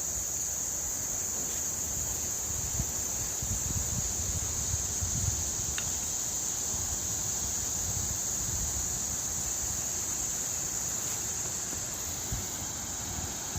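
Crickets trilling steadily as one continuous high-pitched drone, with an uneven low rumble underneath.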